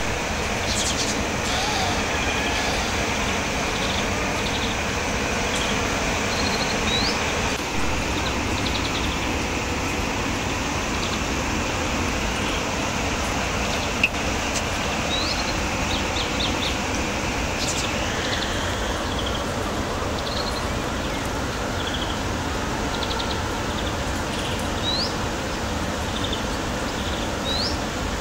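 Steady background noise with short, high, rising chirps scattered through it, and a single sharp click about fourteen seconds in.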